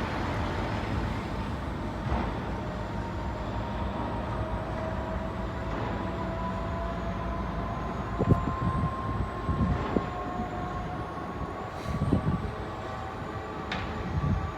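Piling rig's engine and hydraulics running with a steady two-note whine that slowly rises in pitch, over a dense mechanical rumble. Low rumbling surges come and go in the second half.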